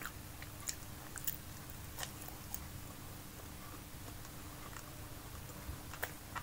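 A person chewing fried food dipped in chili sauce, mouth closed, with a few short sharp clicks scattered through.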